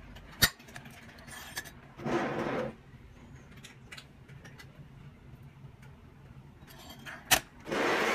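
Hands handling an RC excavator model: a few sharp clicks of its hinged metal-and-plastic covers, and two short rubbing noises, one about two seconds in and one near the end as the model is shifted on the table.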